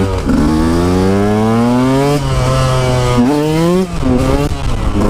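KTM dirt bike engine revving hard in second gear for a power wheelie, with the throttle held open so the front wheel lifts. The revs climb for about two seconds and hold briefly. They climb again and drop suddenly a little before 4 seconds in, then rise once more.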